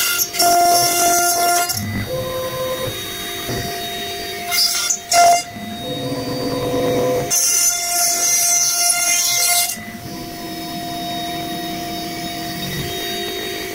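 CNC router spindle running with a steady whine while the router bit cuts into an MDF sheet. Three spells of harsher, hissing cutting noise come over it, the longest around the middle.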